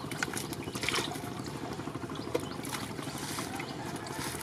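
Wet water weeds and mud rustling, crackling and squelching as hands rummage through them, with water trickling and dripping. There are brighter swishes about a second in and again past three seconds.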